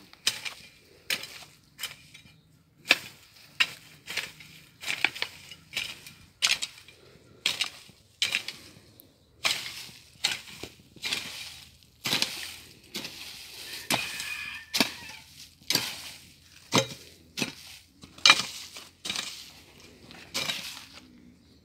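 A long-handled hand tool chopping repeatedly at brush and ground, about thirty sharp strikes at an uneven pace of one every half second to a second, each a quick crack with a short rasp.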